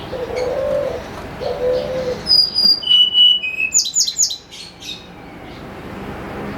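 Tledekan gunung (Sunda robin) singing: three clear, pure whistled notes stepping down in pitch, then a quick run of sharp down-slurred high notes. Before the song comes low two-phrase cooing from a dove.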